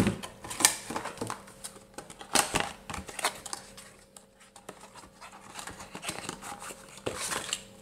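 Unboxing handling noise: irregular taps, clicks and scrapes as a plastic 120 mm PC fan and its cables are moved on a table and a small cardboard box is opened. The sharpest clicks come about half a second and two and a half seconds in.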